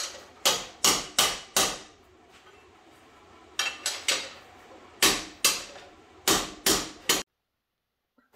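Ball-peen hammer striking a steel plate clamped in a bench vise, about a dozen sharp metallic blows in short runs, each ringing briefly. The blows are hammer-forming a radiused edge into the steel repair plate. The sound cuts off suddenly near the end.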